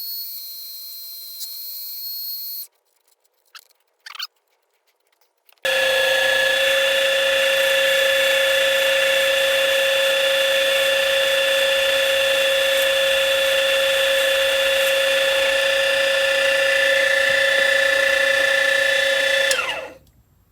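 Micro metal lathe's small motor and spindle running with a steady whine, stopping about three seconds in. After a couple of clicks it starts again louder at about six seconds, runs steadily, and winds down with a falling pitch near the end.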